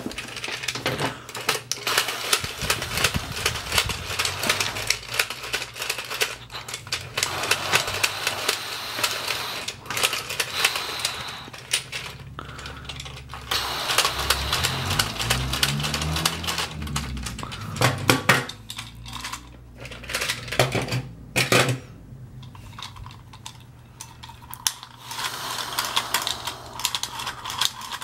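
Hard plastic toy pieces clicking, rattling and knocking as they are handled, a dense run of small clicks with a few louder knocks in the second half.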